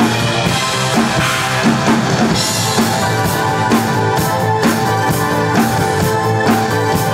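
A rock song with guitar plays while a Ludwig drum kit is played along to it, a steady beat of kick drum, snare and cymbals.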